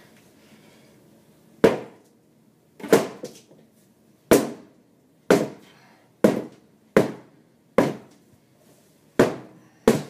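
A hammer knocking on the water-rotted particle-board floor of a sink base cabinet: about nine sharp, hollow strikes, roughly a second apart, a couple of them in quick pairs.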